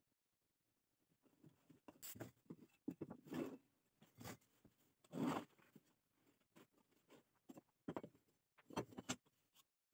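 Handling noises: small wooden pieces being moved and set down on a wooden floor, with rustles and scrapes. The sound comes in a handful of short bursts, the loudest about halfway through.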